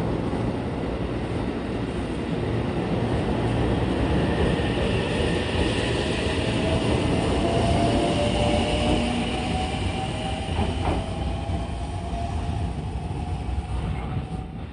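JR Central 313 series electric train pulling away, with wheels rumbling on the rails and a whine from its electric drive that rises slowly in pitch as it gathers speed. It is loudest about halfway through, with a single clack of the wheels a little after, and fades as the train moves off.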